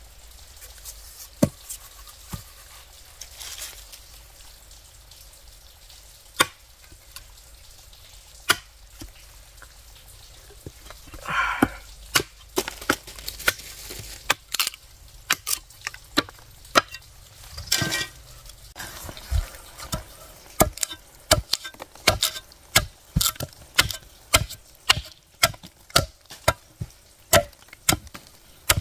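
Wood being chopped with a blade: scattered single strikes at first, with a brief rustle near the middle, then a steady run of chops about two a second through the second half.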